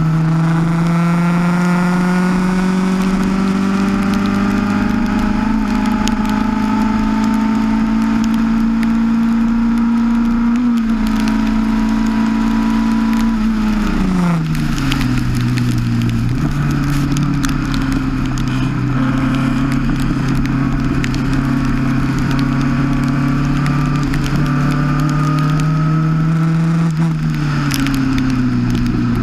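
Onboard sound of a formula single-seater's engine under throttle in the wet, its pitch climbing slowly down a straight. About halfway through it falls away as the car slows, then it climbs again and drops once more near the end. A steady hiss of tyre spray and rain lies under it.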